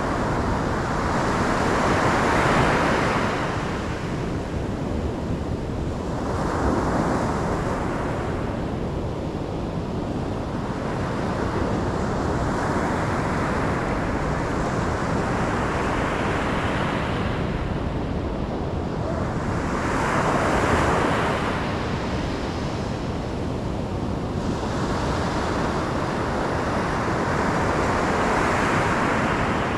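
Ocean surf: waves breaking and washing back in slow surges every four to six seconds over a steady rush of water.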